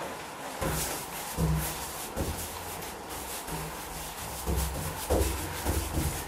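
Paintbrush being dragged in strokes across a wooden door, spreading gloss paint: an irregular scratchy rubbing with dull low knocks mixed in. It starts about half a second in.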